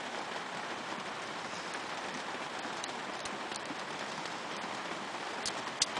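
Steady background hiss with a few faint light clicks as .22 Short rimfire cartridges are pressed one by one into the Beretta 950B pistol's magazine.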